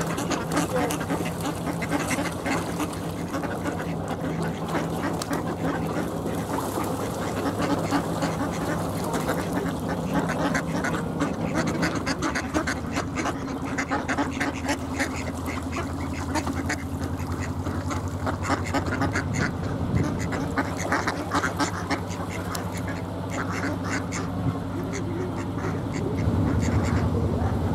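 Mallard ducks quacking repeatedly over the steady low running of a narrowboat engine at idle. The engine grows louder near the end.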